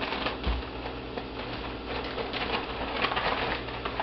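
Crumbled pork sausage frying in a saucepan, the fat sizzling with a steady scatter of small irregular crackles and pops. A soft low thump about half a second in.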